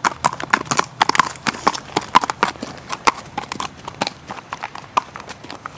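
Hooves of several horses clip-clopping at a walk on a paved road: many sharp, irregular, overlapping hoof strikes.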